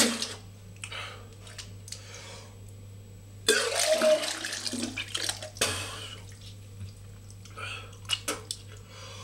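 A man retching and vomiting into a toilet bowl, the liquid vomit splashing into the water. There is a loud heave about three and a half seconds in and another about two seconds later, then smaller drips and splashes.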